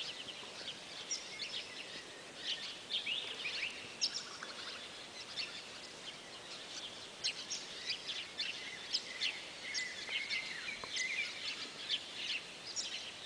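Many birds chirping and calling, short high calls overlapping one after another throughout, over a faint background hiss.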